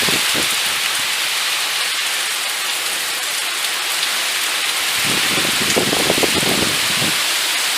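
Steady rain of a moderate-to-strong thunderstorm, an even hiss, with a lower, uneven rumble coming in about five seconds in.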